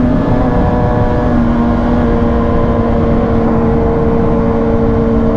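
A vehicle engine running at a nearly steady speed under a loud rushing noise, its pitch holding almost level.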